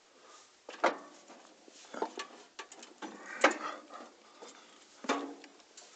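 A handful of irregular clunks and knocks, about five, from footsteps and handling on the potato harvester's metal steps and sorting platform.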